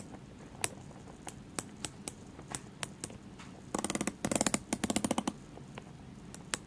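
Small, sharp clicks from the bezel of a Tag Heuer Aquaracer Calibre 5 watch as it is pressed, single clicks at uneven intervals with a quick run of many clicks in the middle. The clicking is a strange noise that the owner can make only by pressing the bezel at the 30 mark.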